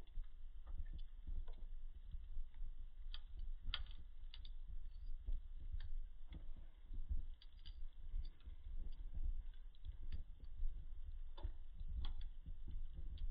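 Wood fire burning in a fireplace, crackling with irregular pops and snaps over a low steady rumble.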